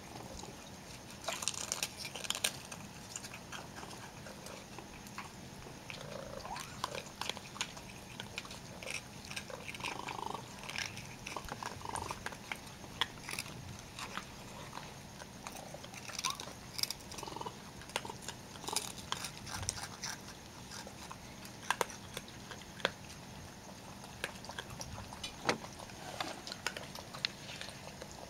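Young raccoons crunching crackers and dry pet food, with many scattered crisp clicks and crunches as they eat.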